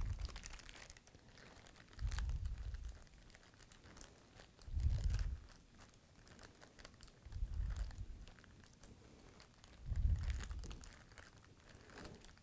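Plastic Ziploc bag crinkling as it is squeezed and kneaded by hand to mix the slime inside, with dull low thumps about every two and a half seconds.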